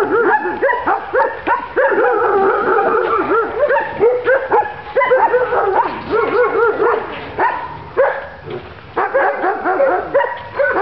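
A dog yipping and whining in a quick, continuous string of short high cries that rise and fall, easing briefly near the end.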